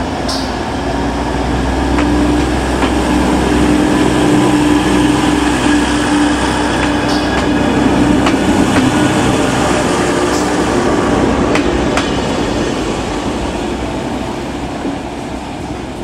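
DB Class 612 diesel multiple unit pulling out and passing close by, its diesel engines running with a steady hum, with a few sharp clicks of the wheels over rail joints. The sound swells as the train passes, then fades in the last few seconds as it moves away.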